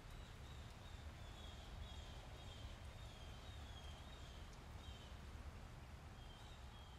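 Faint outdoor ambience: short, high bird chirps repeating over a low, steady rumble.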